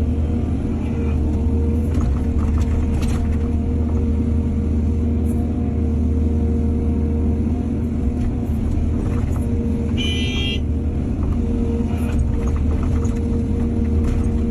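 Diesel engine of heavy earthmoving machinery running steadily at a low drone, with scattered metallic clanks. A brief high-pitched squeal comes about ten seconds in.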